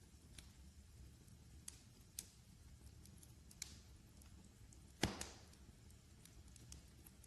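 Wood fire crackling faintly, with scattered small ticks and one louder pop about five seconds in, over a low steady rumble.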